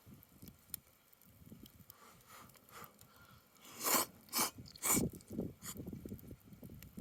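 Someone eating ramen noodles: a quick run of four loud slurping mouth sounds in the second half, over faint low crackling.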